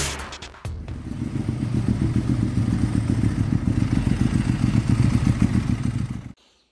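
Petrol Mercedes-Benz R-Class engine turning over on the starter motor with a fast, even pulsing and not catching. It stops abruptly near the end. It cranks but won't start for lack of fuel: the fuel pump is not running.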